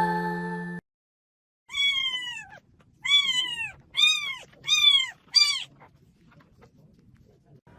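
A cat meowing five times in quick succession, each meow rising and then falling in pitch.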